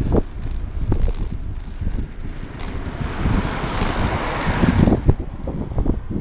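Wind buffeting the microphone while cycling along a road, a steady low rumble with irregular thumps. A car passes in the middle, a hiss that swells and fades.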